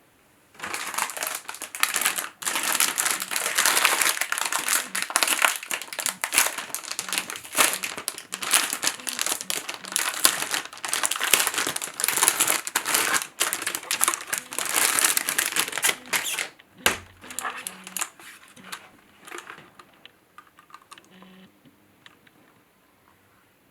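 Plastic packaging crinkling and rustling as a keyboard is unwrapped, full of sharp clicks. After about sixteen seconds it thins to scattered clicks and fades near the end.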